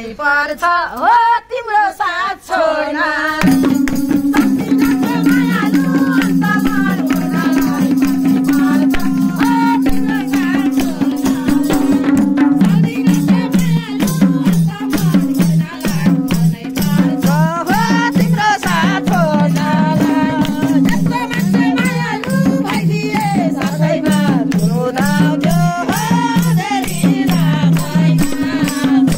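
Nepali dohori folk music: madal drums playing a dense, fast beat under a steady held chord and a winding melody line, with no singing. The band comes in about three and a half seconds in, after a brief voice.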